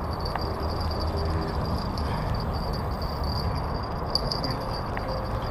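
Outdoor ambience: a steady low rushing noise with a constant high-pitched insect buzz over it.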